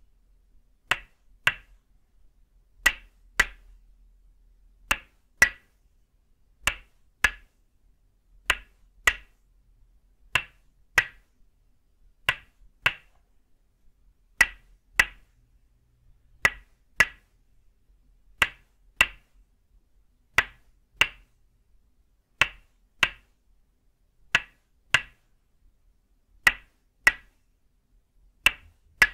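Tok sen massage: a wooden mallet strikes a wooden peg held against a person's back, giving sharp wooden clacks in pairs, one pair about every two seconds.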